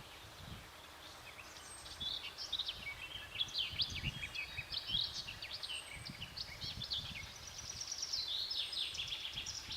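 Birds chirping and twittering in quick, dense runs of high notes, starting about a second and a half in, over a low rumble.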